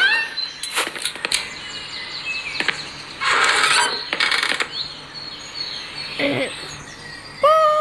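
Outdoor ambience with small birds chirping, scattered sharp clicks and two short bursts of hiss. Shortly before the end a steady pitched tone with overtones starts up.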